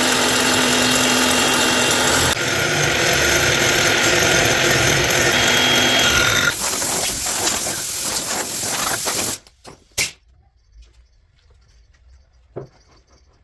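A power tool running loud and steady, its sound changing at about two seconds and again at six and a half, then cutting off at about nine and a half seconds; two faint knocks follow in the quiet.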